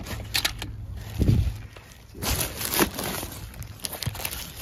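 Gloved hands handling and knocking scrap metal hardware close to the microphone: a few sharp clicks, a dull thump about a second in, then a short scraping rasp a little past two seconds and more light knocks.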